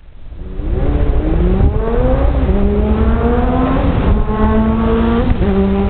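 Road traffic with a vehicle engine accelerating: its pitch rises over the first couple of seconds, then holds fairly level with small steps, over a steady low traffic rumble. The sound fades in during the first second.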